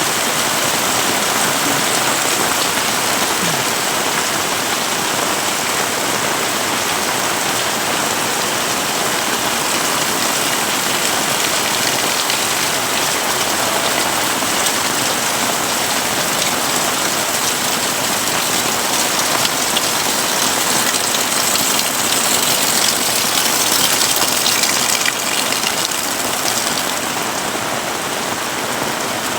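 Heavy rain pouring steadily, swelling slightly heavier about three-quarters of the way through, then easing a little near the end.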